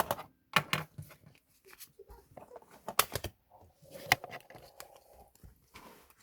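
Photocard packing materials being handled: plastic and paper rustle, with several sharp clicks and taps at irregular intervals.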